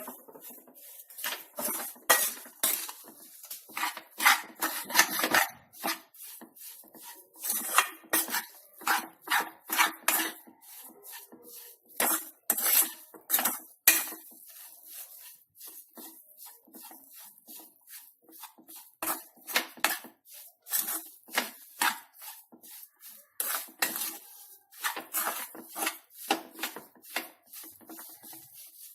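A spoon scraping and stirring in a metal pan in quick, irregular strokes as powdered sugar is worked into the fried mawa and semolina filling. The strokes ease off for a few seconds midway, then pick up again.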